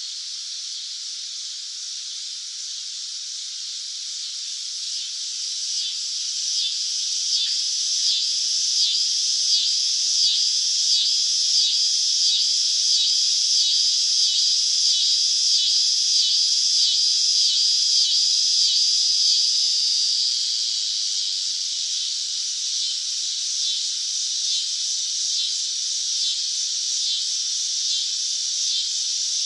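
Cicadas buzzing: a steady high-pitched drone that swells into a pulsing buzz, about two pulses a second, then eases back to a steadier drone.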